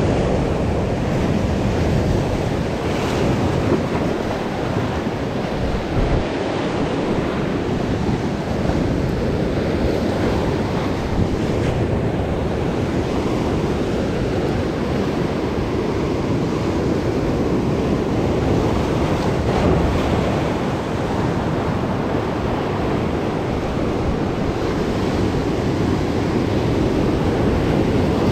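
Sea waves breaking and washing over rocks at the shoreline, a steady surging rush of surf, with wind buffeting the microphone.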